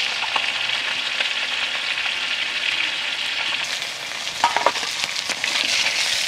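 Catla fish heads sizzling steadily as they fry in hot vegetable oil in a steel wok. About four and a half seconds in come a few short metal clinks as the spatula lifts a fried head out into a steel bowl.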